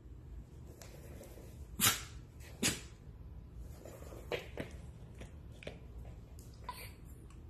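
Miniature dachshund giving two short, sharp barks close together about two seconds in, followed by a few fainter short sounds.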